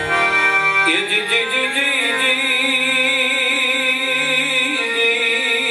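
Instrumental introduction to a Gujarati devotional bhajan by a live Indian ensemble: sustained, wavering melodic lines, with the notes changing about a second in.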